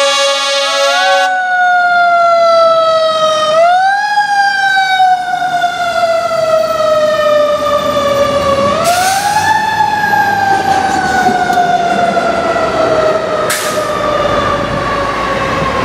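Fire truck siren wailing: the pitch climbs quickly and then falls away slowly over several seconds, about three times. A steady, harsh air-horn blast sounds over it at the start and ends about a second in.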